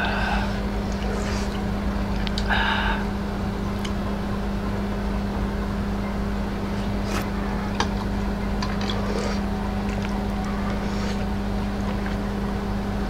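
Steady low electrical hum over a background hiss, with a few light clicks of a spoon against dishes.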